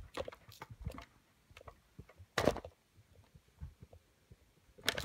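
Soft footsteps and handling rustle of a carried phone camera, with scattered quiet thumps and one louder thump about two and a half seconds in.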